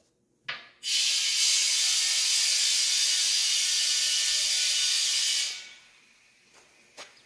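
Compressed air hissing steadily through the valve fitting of a propane-tank pressure pot, fading away after about four and a half seconds as the flow stops. A short click comes just before the hiss starts.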